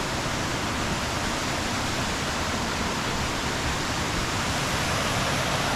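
Steady rushing of water from a waterfall-fed mountain stream, an even hiss with no breaks.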